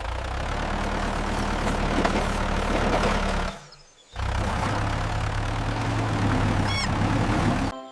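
Tractor engine running, in two stretches with a short break about three and a half seconds in; it cuts off sharply near the end.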